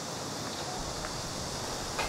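Steady outdoor ambience: an even wind hiss with a few faint short chirps.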